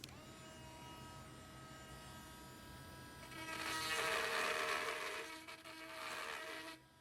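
Small high-speed electric power tool spinning up and running with a steady whine. From about three seconds in it turns into a louder grinding as the bit cuts into the grill, enlarging the mounting holes, then stops abruptly near the end.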